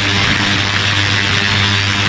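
360 W, 40 kHz ultrasonic cleaner running: a steady buzzing hum over an even hiss from the tank.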